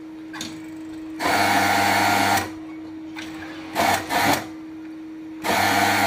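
Industrial overlock (serger) sewing machine stitching in spurts: one run of about a second, two quick short bursts around four seconds in, then another run starting near the end. A steady hum sits under the gaps between runs.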